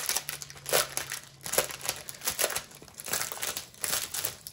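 Clear plastic sleeve around a rolled diamond painting canvas crinkling in a run of bursts as it is handled.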